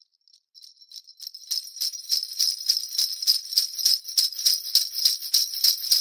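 Sleigh bells (reindeer jingle bells) shaken in a steady rhythm of about four shakes a second, fading in from silence over the first second and a half.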